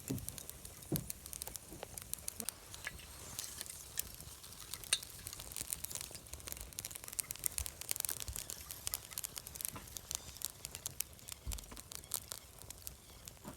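Wood fire crackling: dense, irregular snaps and pops over a steady hiss, with a few soft low thumps.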